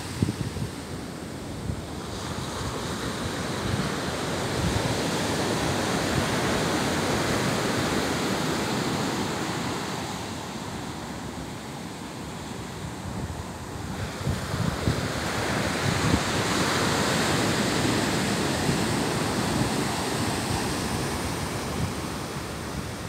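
Ocean surf breaking and washing up a sandy beach, a steady rush that swells and eases in slow surges, with wind buffeting the microphone.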